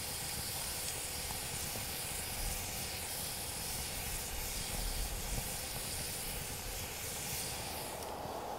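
Wood campfire burning in a steel fire ring with a steady hiss, steam coming off the damp, snowy firewood.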